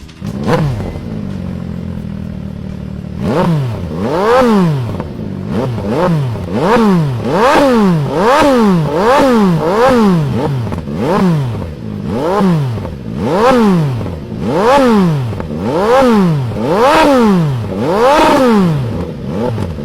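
Three-cylinder motorcycle engine idling for about three seconds, then revved in quick repeated throttle blips, each a fast rise and fall in pitch, about one a second.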